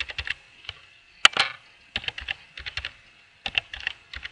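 Typing on a computer keyboard: quick bursts of key clicks with short pauses between them, one stroke louder than the rest a little over a second in.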